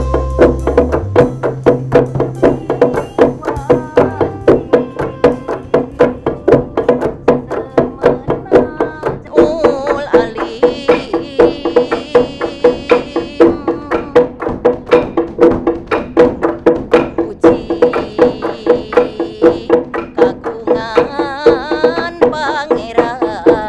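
Tutunggulan: several long wooden pestles (halu) striking a hollow wooden rice-pounding trough (lisung) in an interlocking rhythm, about three knocks a second, the trough ringing with each stroke. High wavering tones join in twice, from about ten seconds in and again near the end.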